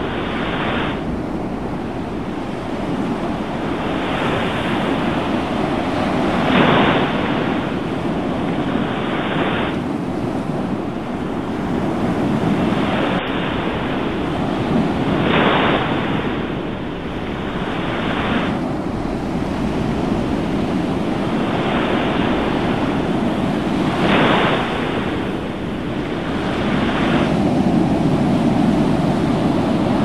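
Ocean surf: a continuous rush of churning, foaming seawater, with a wave breaking and swelling louder about every nine seconds.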